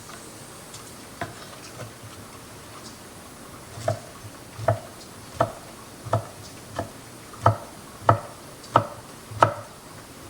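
A kitchen utensil knocking against a pan or board while cornbread chunks are cut and laid into a bowl: two light knocks, then a steady run of about nine sharper knocks roughly two-thirds of a second apart.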